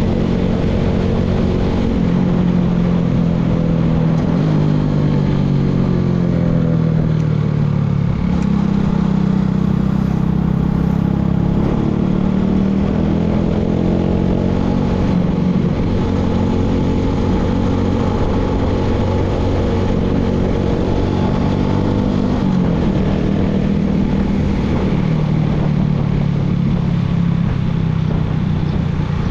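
Engine of a baler running continuously at working speed, its pitch dipping and rising a few times as the load or throttle changes.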